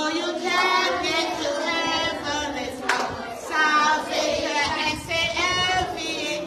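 A group of children singing together, with a single sharp clap or knock about three seconds in.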